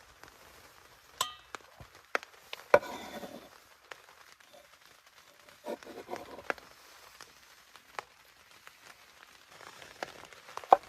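Cooking utensils and food being handled during meal preparation: a handful of separate sharp knocks and clinks with quiet gaps between, the loudest almost three seconds in.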